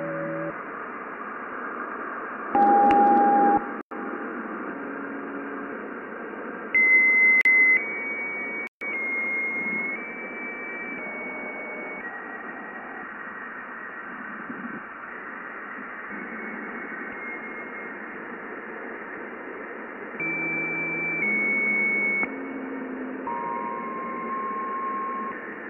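Recording of Jupiter's radio emissions turned into audio: a steady hiss with held whistling tones that jump to new pitches every second or two, louder for a moment about 3, 7 and 21 seconds in. The hiss cuts out briefly twice, about 4 and 9 seconds in.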